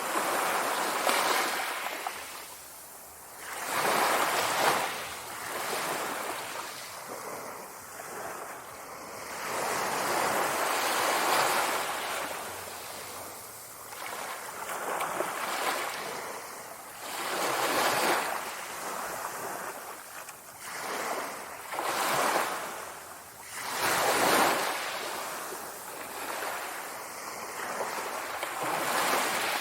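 Sea waves washing onto the shore, surging and receding every few seconds, with some wind noise.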